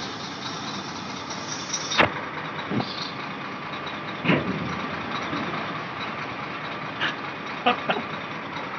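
A vehicle engine running steadily, with several sharp knocks; the loudest knock comes about two seconds in, and two come close together near the end.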